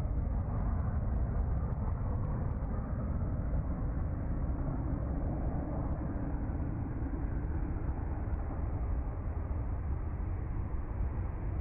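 Jet aircraft engine noise: a steady, deep, rushing sound with no clear pitch.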